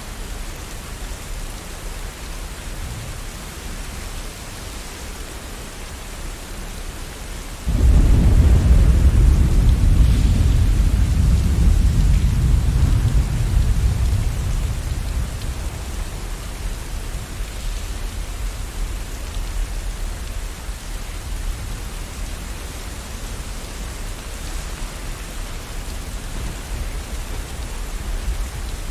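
Steady rain with a sudden loud clap of thunder about eight seconds in. Its deep rumble rolls on for several seconds and slowly dies away under the rain.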